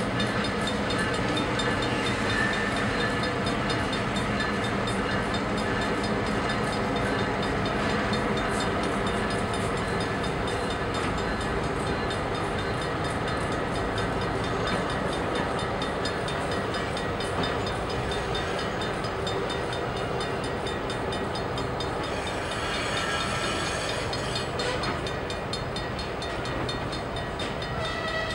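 Freight train rolling across a grade crossing, its wheels clicking steadily over the rail joints. The locomotives' diesel engines are running and fade over the first half as the freight cars pass.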